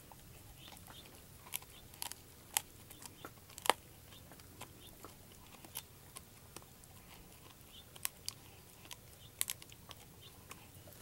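A beagle gnawing on a piece of rawhide: irregular crunches and sharp clicks of teeth on the hide, with pauses between.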